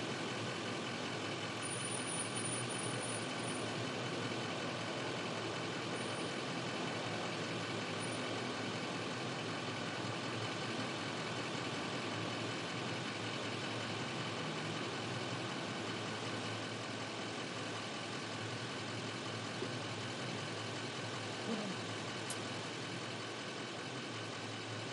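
Motorcade vehicle engines idling steadily, an even hum with a few steady tones in it.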